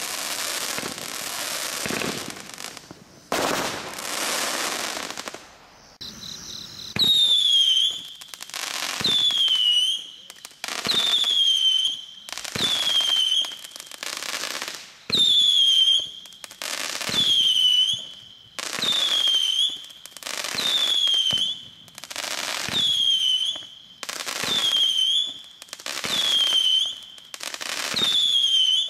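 Aerial firework barrage going off. First comes about six seconds of dense crackling and bangs. After a short lull, a regular series of shrill whistling shots follows, one roughly every two seconds; each starts with a burst and a tone that dips slightly in pitch and then holds for about a second.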